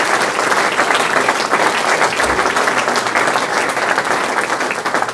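Audience applauding steadily, dense clapping from many hands in response to a speech's applause line.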